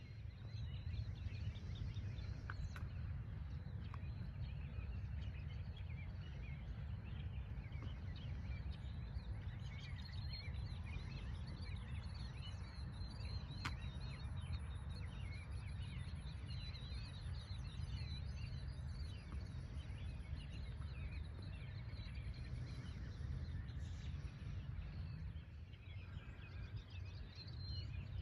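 Outdoor park ambience: a steady low rumble with many small bird chirps scattered throughout.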